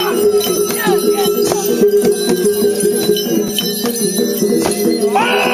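Traditional Sumbanese festive music with steady repeated ringing tones, quick percussive strikes and jingling. High wavering voices join about five seconds in.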